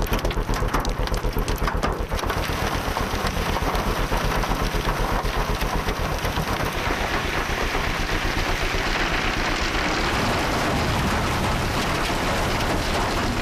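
Hail and heavy rain pelting down: a rapid, dense patter of hits for the first couple of seconds that merges into a steady rushing downpour.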